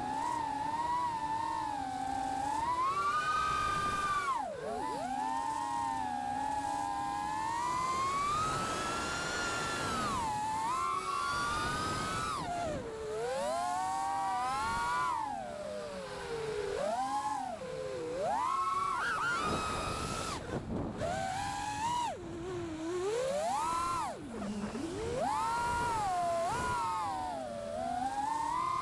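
Manta 5 SE V2 FPV quadcopter's motors and propellers whining, the pitch sliding up and down over and over as the throttle is worked. Short rushes of wind noise come in places, most strongly around a third of the way in.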